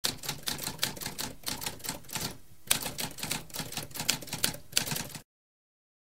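Typewriter typing: a fast run of sharp key strikes, a brief pause about two and a half seconds in, then more strikes, stopping abruptly a little after five seconds.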